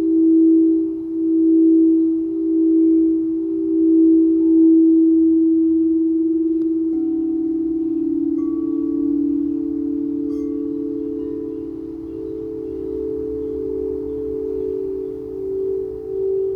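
Singing bowls ringing in sustained, overlapping pure tones with a slow, regular pulsing beat. A lower tone joins about seven seconds in and a higher one about a second later, with faint brief higher chime-like tones above.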